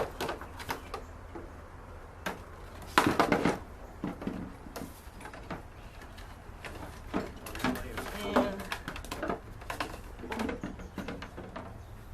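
Scattered clicks and knocks of hands handling a mobility scooter's wiring and battery parts, with a louder clatter about three seconds in.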